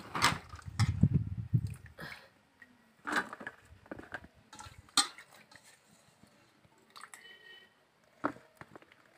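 Flat beans and potato pieces swished in water in a steel bowl for the first two seconds, then dropped by the handful onto a steel plate: a few separate wet clicks and knocks against the metal.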